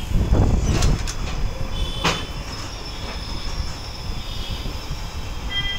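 Passenger train coach running over the rails, heard from its open door: a steady low rumble with sharp metallic clanks about one and two seconds in, and a faint high wheel squeal.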